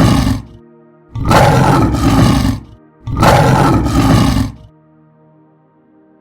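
A large animal roaring in loud, rough calls about a second and a half long: the end of one just after the start, then two more, then a pause from about two thirds of the way through. Soft steady background music plays underneath.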